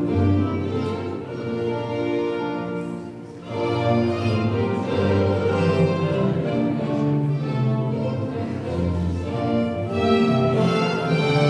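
Baroque dance music for a courante played on bowed strings, violins over a low bass line, with a brief lull a little over three seconds in before the playing picks up again.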